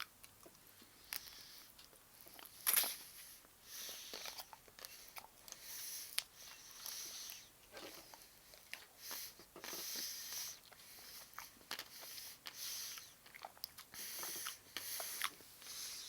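Close mouth sounds of someone biting and chewing a Nestlé Milky Bar ice lolly: short, irregular faint bursts, with one louder bite about three seconds in.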